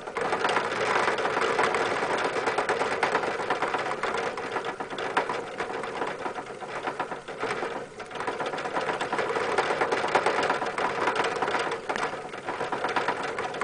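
Dwarf Russian hamster running in her exercise wheel: a fast, steady rattle of the wheel that starts suddenly, slackens briefly about eight seconds in, then picks up again.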